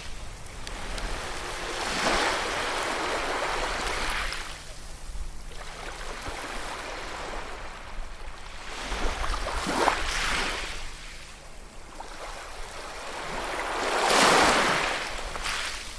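Ocean waves breaking and washing on a shore: surges of surf hiss that swell and fade every few seconds over a steady low rumble, the strongest wave breaking near the end.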